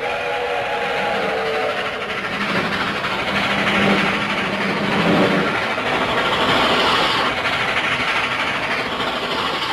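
Train running along the track: a steady rumble and rattle of the rails, with a low tone that swells and fades in the middle.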